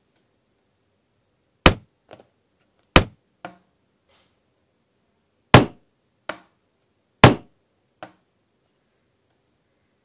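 Plastic tubs and molds being set down on a wooden tabletop: four sharp knocks, each followed about half a second later by a fainter one.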